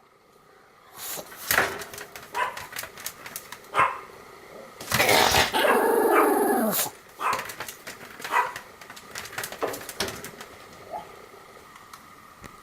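Pomeranian barking and yipping in short, sharp bursts, with a longer loud cry from about five to seven seconds in that falls in pitch; the calls thin out towards the end.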